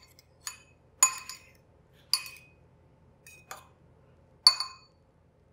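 Metal fork clinking against the side of a bowl of beaten egg while turning a coated piece of goat cheese: about five separate sharp, ringing taps, roughly one a second.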